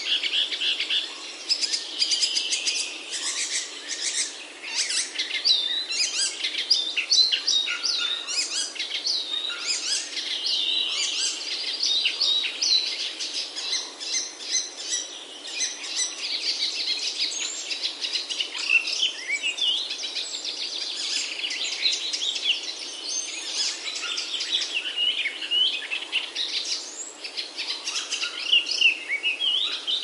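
A dense chorus of small songbirds: many overlapping quick chirps, trills and whistled notes, steady throughout with no pause.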